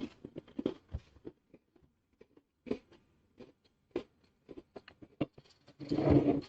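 Crisp chocolate-topped shortbread cookies being bitten and chewed: irregular small crunches and clicks, with a longer, louder burst near the end.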